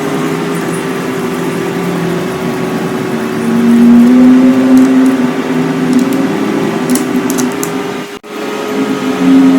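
Espresso machine pump running with a steady hum that shifts pitch slightly a few seconds in and breaks off abruptly for a moment near the end.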